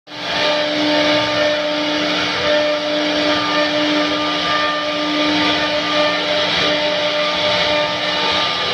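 CNC machine spindle running at a steady high speed while cutting a 3D carving, a steady pitched tone over a hiss of cutting noise.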